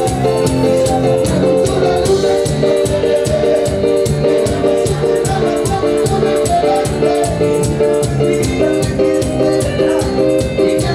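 Live band music without vocals: held chords over a steady beat, with evenly spaced high percussion strokes running through it.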